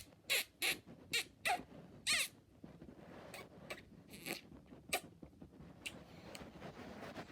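A person making squeaky kissing sounds with the lips: about six quick kisses in the first two seconds or so, then fainter ones spaced further apart.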